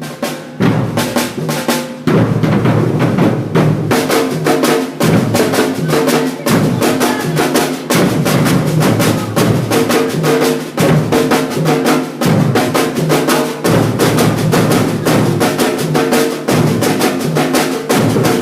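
Batuque percussion ensemble drumming a fast, dense rhythm on several drums together.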